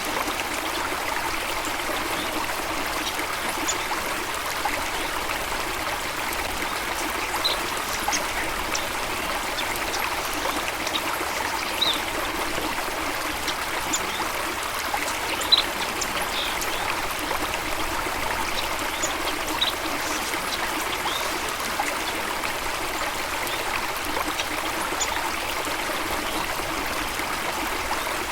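Flowing stream or small waterfall, a steady even rush of water. Short high bird chirps come every few seconds, the loudest about halfway through.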